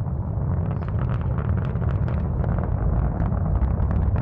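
Rocket launch: a deep, steady rumble with crackling on top, the crackle growing denser near the end.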